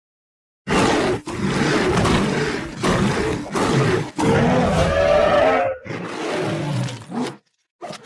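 Monster roar sound effect: a string of deep, rough creature roars and growls, back to back with brief breaks, starting about a second in, then a short growl near the end.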